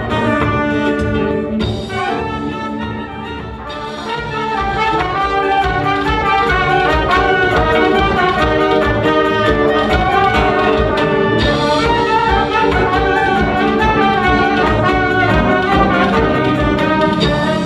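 Balkan brass band playing live: trumpet, saxophone and a bell-up brass horn carry the tune over drum kit and acoustic guitar, with a steady beat. The music thins and drops in volume about two seconds in, then comes back in full about four seconds in.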